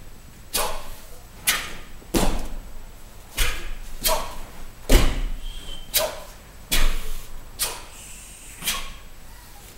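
ITF TaeKwon-Do uniforms (doboks) snapping sharply with each punch, block and kick of a pattern, some strikes with a thud of feet on the floor mats: about ten short cracks, irregularly spaced, roughly one a second.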